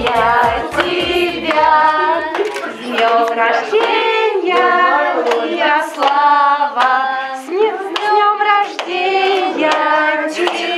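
A group of voices, children's among them, singing a birthday song together while clapping in time. A backing track with a beat stops about two seconds in, and the singing and clapping carry on without it.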